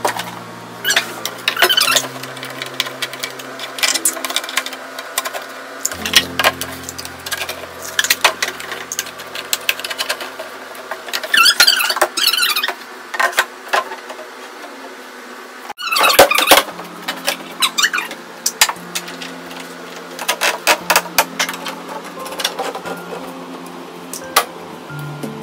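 Background music with sustained low notes that change every few seconds, over irregular clicks and knocks of hard plastic slide parts being handled and fitted together.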